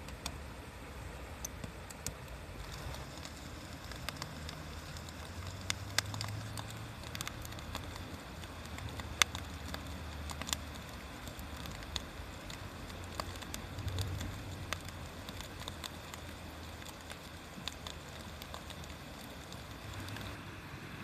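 Wood fire crackling, with irregular sharp pops, the loudest about nine seconds in, over a low steady rumble.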